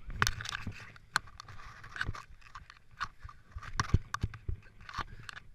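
A runner crawling under a pickup truck on hands and knees, hands and body scraping and crunching over dirt and grit in irregular scuffs and knocks.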